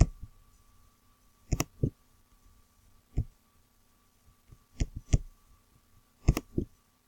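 Computer mouse clicking: about eight short sharp clicks, several in quick pairs, spaced a second or two apart, over a faint steady electrical hum.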